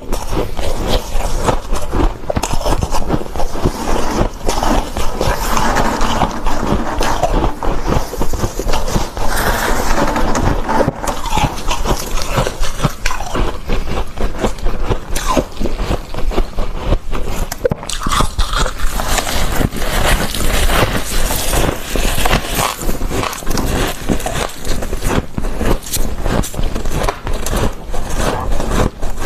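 Soft, fluffy freezer frost being bitten, scraped and chewed, a continuous run of dense crunching and crackling.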